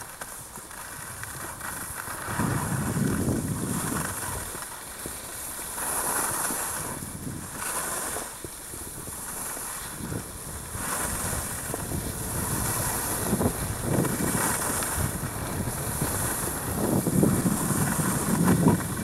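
Wind rushing over the microphone of a moving skier, with the hiss of skis sliding on packed snow. The sound swells and fades every few seconds, with a low rumble and a high hiss.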